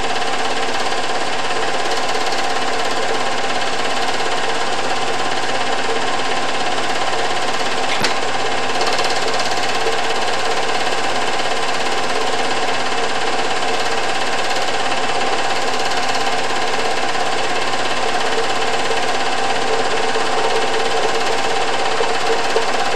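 Film projector running steadily, its mechanism clattering without a break, with one sharp click about eight seconds in.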